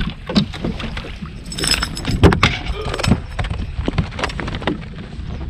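Irregular clicks, knocks and rattles of an angler handling rod and gear on a bass boat while landing a just-hooked bass, over a steady low rumble.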